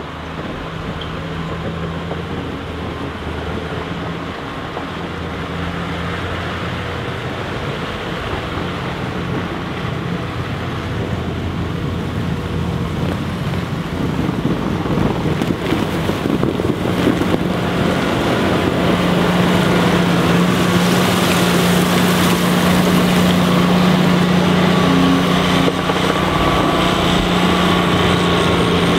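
Cat 163H motor grader's diesel engine running steadily under load as the grader drives past, with its blades scraping solid ice and compacted snow off the road. The sound grows louder about halfway through and is loudest in the last third as the grader comes close.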